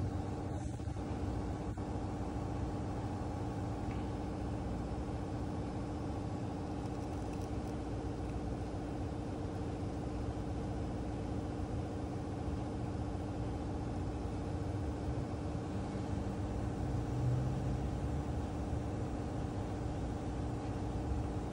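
Steady mechanical hum of a running motor, with several held tones and no change in pitch or level.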